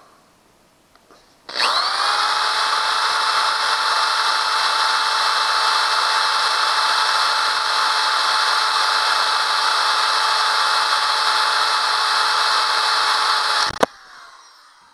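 Power drill boring a mounting hole through a chopping board. It spins up quickly to a loud, steady whine for about twelve seconds, then the trigger is released and it winds down.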